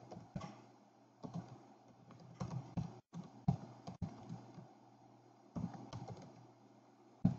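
Computer keyboard typing in short, irregular bursts of keystrokes, with one sharper key press near the end. A faint steady low hum runs underneath.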